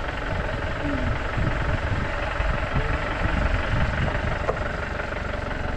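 Steady engine and road noise of a car being driven.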